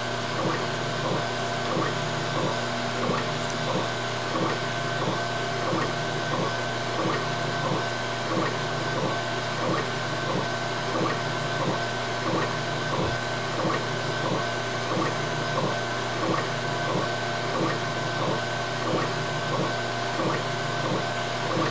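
Laser cutter raster-engraving a wooden panel: the head shuttles back and forth in an even rhythm, about two passes a second, over a steady machine hum.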